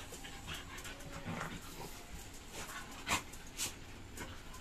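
Several excited dogs panting and whimpering, with short scuffles and clicks of claws on a tile floor.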